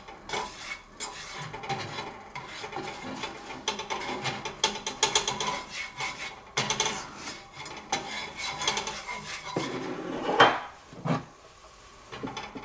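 Slotted spatula scraping and rubbing across the bottom of a nonstick frying pan in irregular strokes, spreading a melting pat of butter. The scraping dies away a little before the end.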